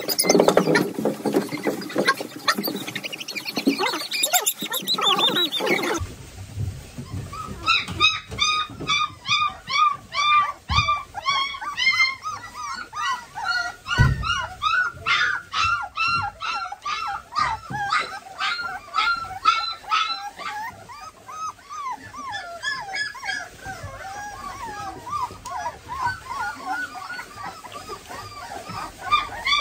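German Shorthaired Pointer puppy whimpering and squeaking in a long run of short, quickly repeated high calls while its claws are being trimmed. Dense rustling and clicks come before the squeaks, which start about six seconds in.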